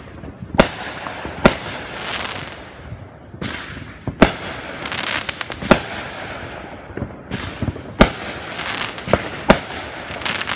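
Aerial fireworks going off: about half a dozen sharp bangs, one to two and a half seconds apart, with hissing and crackling between them.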